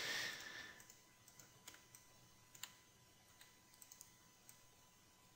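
Faint, scattered clicks of a computer mouse and keyboard, about eight in all, spaced unevenly half a second to a second apart, over near silence. A brief fading hiss at the start.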